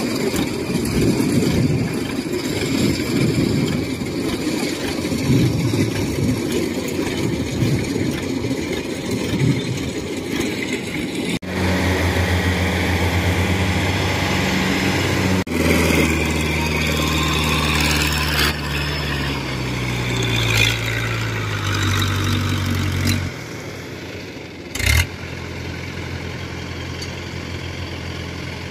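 Engines of a rice combine harvester and a tracked rice-sack carrier running, heard in several abruptly cut clips. In the middle the engine note slides down in pitch as the machine slows. Near the end comes a short loud knock.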